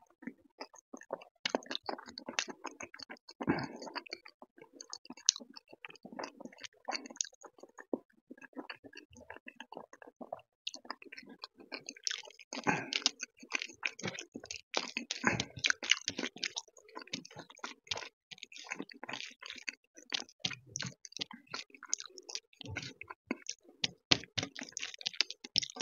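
Close-miked eating: wet chewing and lip-smacking of dal and rice, with many sharp mouth clicks, alongside fingers squishing and mixing the food on a metal plate. The clicking grows denser about halfway through.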